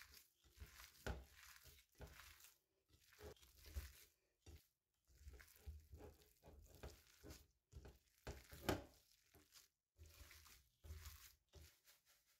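Gloved hand kneading raw minced meat and chopped onion in a bowl: faint, irregular squishing of the meat and rustle of the plastic glove, in short bursts with brief pauses.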